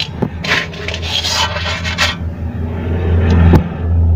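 Metal scraping and rubbing as a steel washer is worked off the clutch hub of a TVS King two-stroke auto-rickshaw engine. The scrapes come in the first two seconds, and there is a click near the end. A steady low hum runs underneath and is louder near the end.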